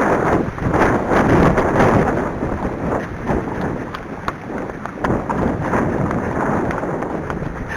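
Strong wind buffeting the microphone: a loud, rumbling roar that gusts and eases, strongest in the first two seconds.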